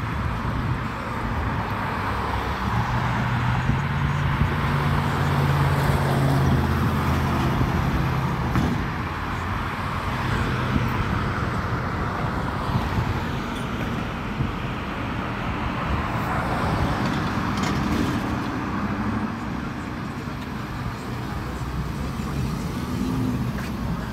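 Road traffic at a city street intersection: cars passing with steady tyre and engine noise. A low engine drone stands out for a few seconds near the start.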